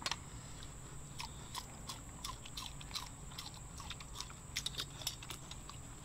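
Scattered soft clicks and crunches of people eating with their hands, at irregular intervals, over a steady high-pitched insect trill.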